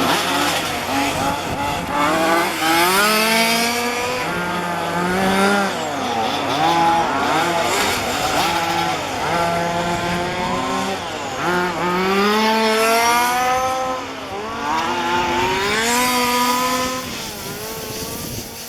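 Small two-stroke petrol engines of 1:5-scale RC cars revving up and dropping off again and again as they lap the track, about five or six rising runs in a row.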